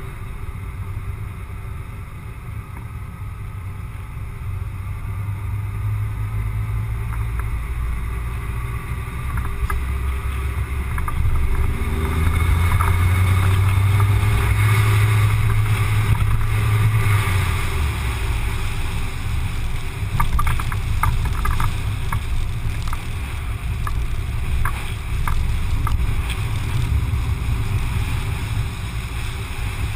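Car driving along a town road, picked up by a car-mounted action camera: a steady low rumble of engine, tyres and wind, swelling louder about halfway through. A few light clicks or rattles come a little past the middle.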